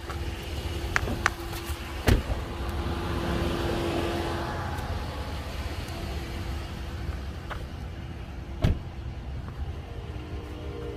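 Ram pickup truck driving slowly: a steady low engine and tyre rumble, with a faint steady hum and two sharp knocks, one about two seconds in and one near the end.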